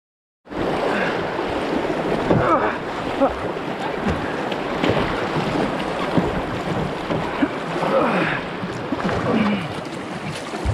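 River rapids rushing, splashing and gurgling around a folding kayak, cutting in abruptly about half a second in.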